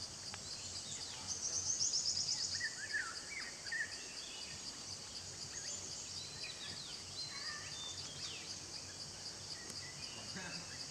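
Forest ambience: a steady pulsing chorus of insects, with scattered short bird chirps and a louder rapid trill lasting about a second and a half, starting about a second in.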